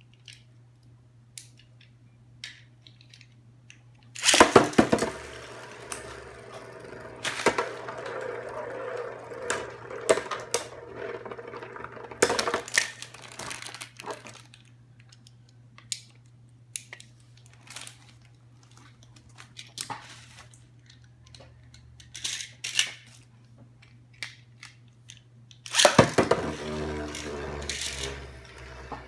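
Plastic packaging being handled and torn open, in several bouts of crackling and rustling with scattered small clicks, over a faint steady hum.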